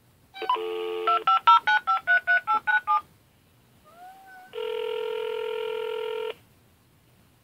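A phone call being placed: about a second of dial tone, then a quick run of about ten touch-tone keypad beeps dialing the number, a short faint rising tone, and one ring of the ringback tone lasting under two seconds.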